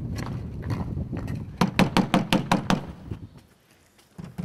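Footsteps of several people walking on a hard paved street: quick, hard knocks, about five a second at their densest, dying away after about three seconds.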